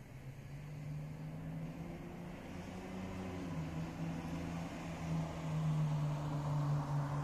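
A motor vehicle's engine hum, with road noise, growing steadily louder as it approaches.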